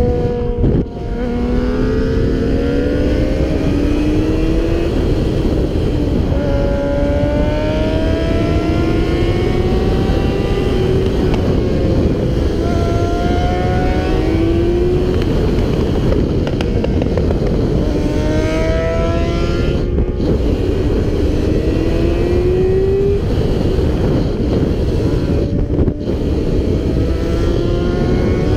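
Sport motorcycle engine under way over heavy wind rush, its pitch climbing steadily for several seconds and then dropping back, about five times, as the bikes accelerate and change gear.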